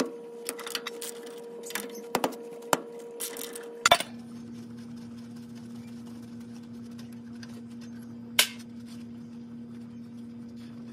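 Ratchet and socket clicking and clinking against steel while the brake caliper bolts are backed out, in an irregular run of sharp metallic clicks over the first four seconds. A single louder clink follows about eight seconds in, over a steady low hum.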